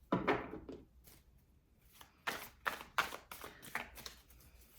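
Tarot cards being shuffled and handled by hand in short rustling strokes: one brush right at the start, then a quick run of them from about two seconds in.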